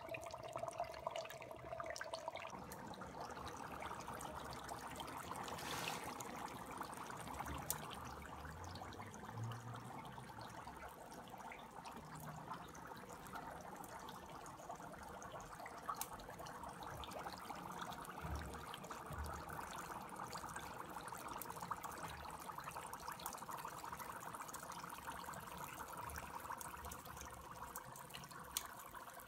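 Dry ice bubbling steadily in water: carbon dioxide gas fizzing up through the liquid as the ice turns to fog, with small scattered pops.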